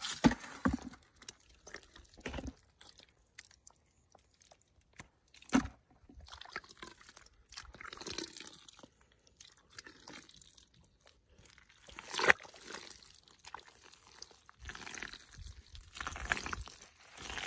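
Hand scooping and squeezing wet mud out of a water-filled hole, squelching and splashing in irregular bursts, with a few sharper wet slaps, the loudest about twelve seconds in.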